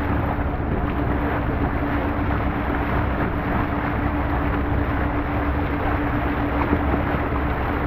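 A boat's motor running steadily while the boat is underway, a constant hum over a low rumble, with wind buffeting the microphone.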